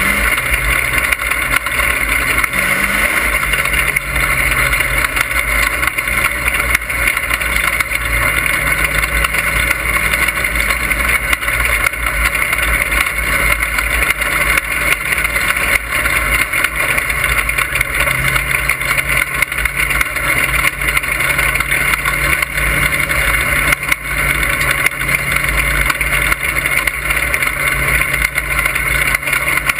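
Dirt-track stock car's engine running hard under racing, heard from inside the cockpit as a steady loud drone whose pitch rises and dips slightly with the throttle.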